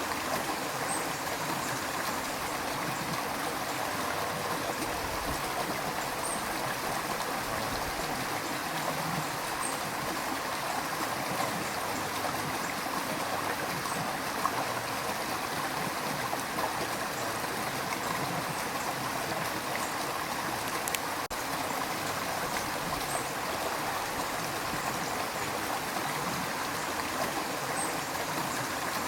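River water rushing in a steady, even flow.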